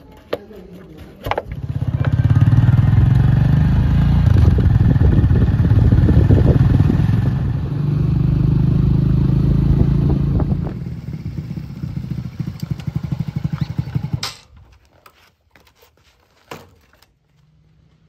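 TVS Radeon single-cylinder motorcycle engine starting about a second in and running loud and pulsing as it is ridden, its level rising and falling with the throttle, then cutting off suddenly a few seconds before the end.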